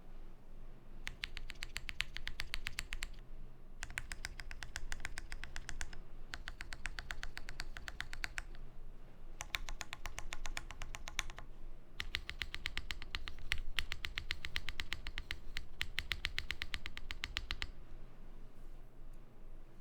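Typing on a Matrix 8xv 3.0 custom mechanical keyboard with lubed Cherry Nixie linear switches, a POM plate, GMK keycaps and foam dampening. Quick runs of keystrokes come in about five bursts, with short pauses between them.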